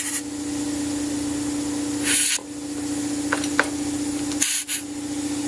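Compressed air hissing in two short bursts as a pressure washer tire's inner tube is inflated a little at a time, over a steady motor hum. A couple of faint clicks fall between the bursts.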